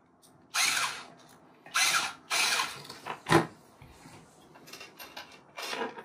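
Small magnetic powered screwdriver running in several short spurts as it drives the tiny cap screws into a square patch-cable plug, with a sharp click about three seconds in.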